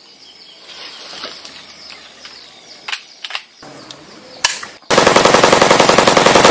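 A few faint clicks, then about five seconds in a loud burst of rapid automatic-rifle gunfire sound effect, many shots a second, that carries on past the end.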